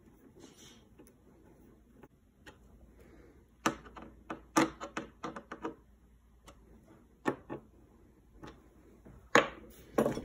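Clicks and knocks of small hand-tool work: a screwdriver driving screws to fasten a red light lens into a spoiler, and tools and small parts handled on a wooden workbench. A quick run of taps comes about four seconds in, then single knocks, the loudest two near the end.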